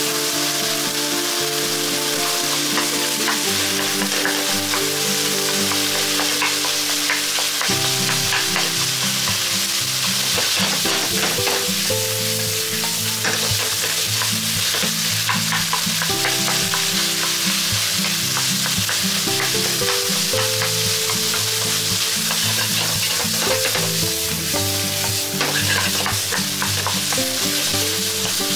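Minced pork sizzling in hot oil in an iron wok, stirred and broken up with a wooden spatula that scrapes and knocks against the pan many times.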